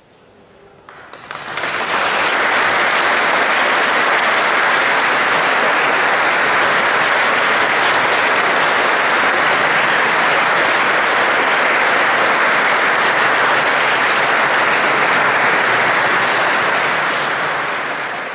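Audience applause breaking out about a second in, right after the end of a live performance, then continuing steadily and loudly.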